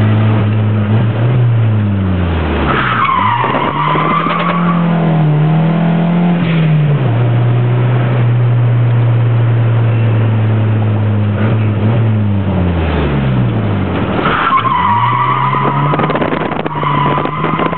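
Nissan 200SX S13 engine heard from inside the cabin, its revs dropping and climbing again twice. Two stretches of tyre squeal as the car slides: one about three seconds in, and a longer one starting about fourteen seconds in and running nearly to the end.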